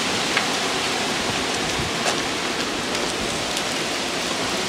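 Heavy rain falling steadily on a street, a dense even hiss with a few sharper drip taps scattered through it.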